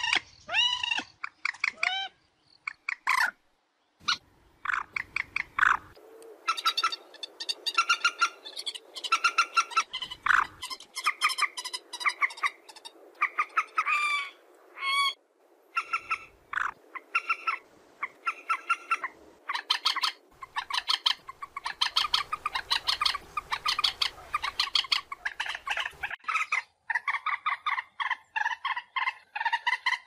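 Common moorhen calling: short notes repeated in quick runs, a few notes at a time. The calls are spaced out for the first few seconds, then follow almost without a break.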